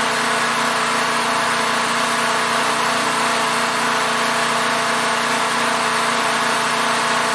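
Portable generator engine running at a steady speed, a constant drone.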